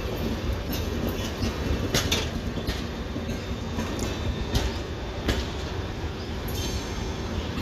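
Red LHB passenger coaches of an Indian Railways express rolling past as the train pulls into the station. The wheels make a steady rumble on the rails, with irregular sharp clacks as they cross the rail joints.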